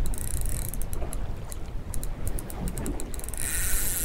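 Fishing reel clicking while a hooked fish is played, a run of irregular ticks that turns into a steady high rasp about three seconds in, over a low wind and boat rumble.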